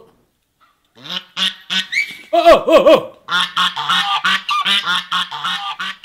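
Domestic geese honking loudly, several birds calling over one another in a rapid, agitated run that starts about a second in. The loudest calls come near the middle.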